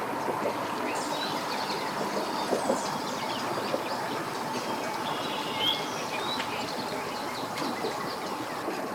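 Steady mechanical background noise with a faint steady hum, and birds chirping briefly several times over it.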